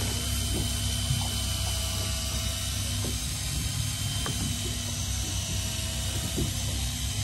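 Hand-cranked deep-sea fishing reel being wound in, its mechanism giving irregular light clicks over a steady low hum.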